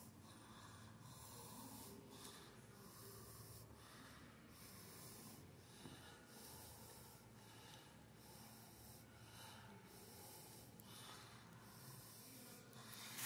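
Near silence: room tone, with faint soft hisses repeating about once a second.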